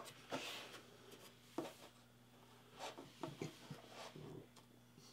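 Faint, scattered scratches and rubs: fingers smoothing painter's tape down onto a wooden board and the tip of a hobby knife scraping along the tape beside a ruler.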